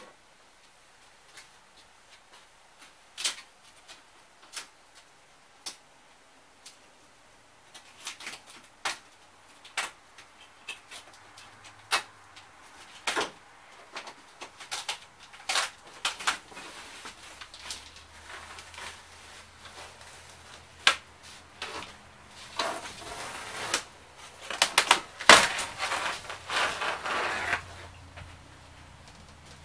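Irregular knocks, taps and clatter of hands-on work inside a stripped travel trailer, getting busier toward the end with a few seconds of rattling and crackling.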